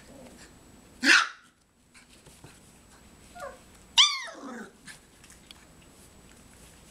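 Three-and-a-half-week-old puppies giving sharp, high puppy barks while they tussle: one about a second in, a faint squeak, then a louder yelp falling in pitch about four seconds in.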